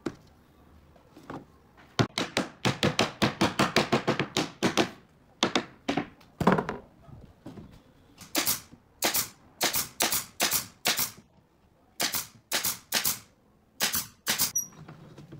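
Pneumatic nail gun firing nails into pallet wood: a fast run of a dozen or more sharp shots about two seconds in, then further single shots roughly half a second apart.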